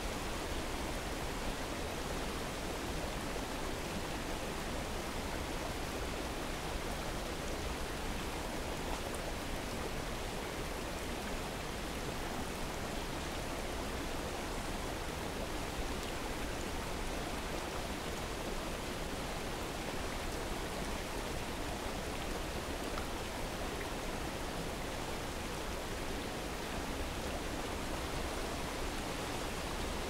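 Steady, even rush of running water from a small waterfall and stream, mixed with falling rain.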